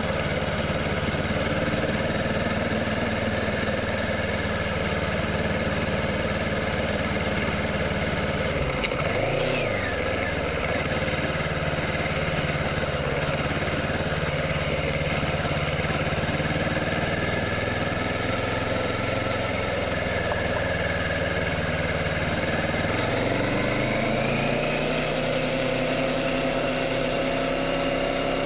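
Kawasaki Ninja 650's parallel-twin engine running steadily while being ridden. Its pitch dips and recovers briefly about a third of the way through, then rises steadily near the end as the bike accelerates.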